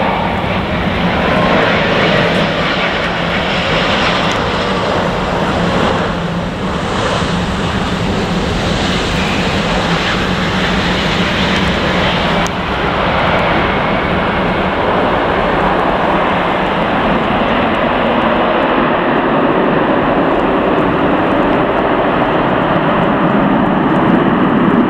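Airbus A350's two Rolls-Royce Trent XWB turbofans: a steady jet rumble and whine as the airliner passes low on final approach and lands. In the last several seconds it grows a little louder and deeper while the jet rolls out on the runway.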